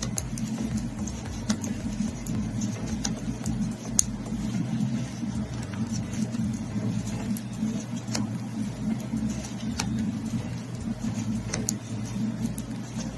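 Steady low hum with a few sharp clicks scattered through it. The clicks are knitting needles tapping together as stitches are worked by hand.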